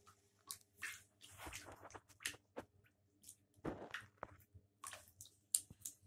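Cape monitor lizard in shallow bath water: irregular small wet clicks and splashes, a few every second, over a faint steady hum.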